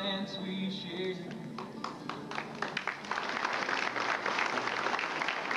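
Audience clapping, building into steady applause from about a second and a half in, as music with singing fades at the start.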